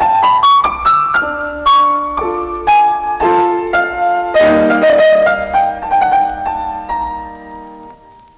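Solo piano music: a quick run of notes climbing at the start, then chords that ring and die away to a fade near the end.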